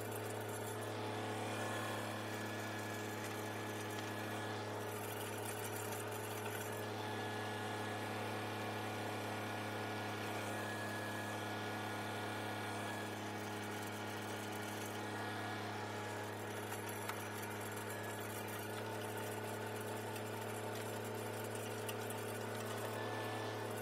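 Kubota tractor's diesel engine running at a steady, even pitch under load, driving a rear rotary tiller through the PTO as it tills the soil.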